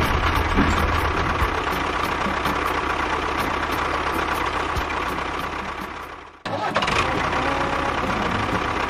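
Small motor of a DIY mini tractor or bulldozer running steadily. The sound fades away about six seconds in, then comes back abruptly half a second later.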